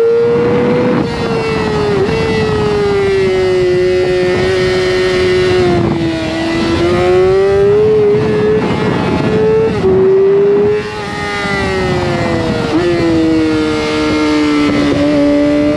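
Racing motorcycle engine running hard at high revs on track, over a rush of wind noise. The engine note slowly rises and falls, with a few quick dips and jumps in pitch.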